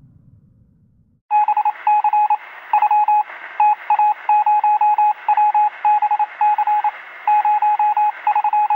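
Rapid electronic beeps at one pitch, keyed on and off in quick clusters of two to six, over a steady thin hiss that sounds as if it comes through a radio or telephone line. It starts about a second in, after a low rumble fades out.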